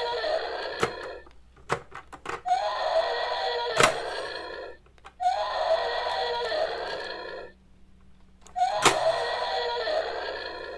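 The same electronic sound effect played four times, each about two seconds long and cut off abruptly, with knocks of hard plastic toys between and at the start of each.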